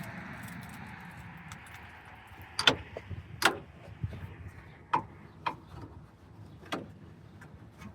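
Sharp clicks and knocks of tools and parts being handled while working in a truck's engine bay, about six separate strikes over a few seconds, over a low rush that fades in the first couple of seconds.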